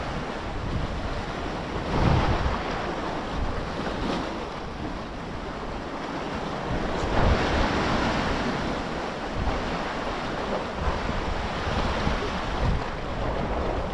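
Sea waves washing and breaking on the shore, surging louder about two seconds in and again around seven seconds, with wind buffeting the microphone.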